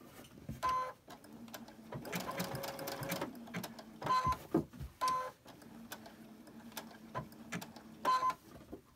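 Sewing machine stitching the edge of a fabric appliqué in short runs of a few stitches at a time. Each run is a brief, louder whirr, with a steady low hum in between.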